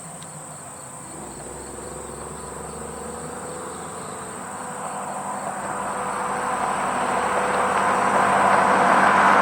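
A road vehicle approaching, its engine and tyre noise growing steadily louder, over a steady high-pitched insect trill.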